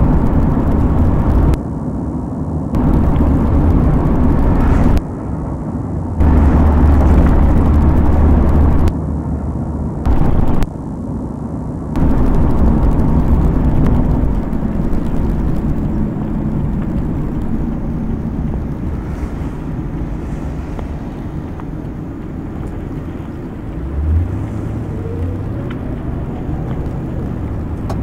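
Rumbling vehicle noise picked up by a police car's dash-cam microphone. The loudness jumps up and down abruptly every second or two for the first twelve seconds, then settles into a steadier rumble.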